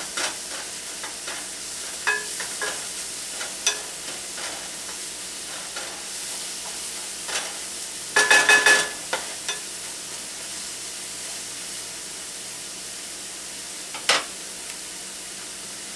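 Mushrooms, onion and garlic sizzling in a frying pan, stirred and scraped with a wooden spatula. A short cluster of loud knocks comes about eight seconds in, and a single sharp knock near the end as the spatula is set down.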